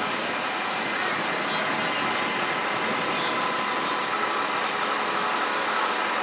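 Outboard motor of a speeding boat running at high speed, a steady engine note over the hiss of its wake and spray.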